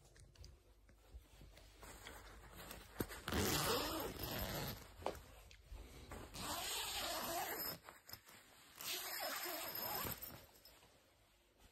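Sleeping bag being handled: a zipper being drawn and the nylon shell rustling, in three stretches of a second or more each.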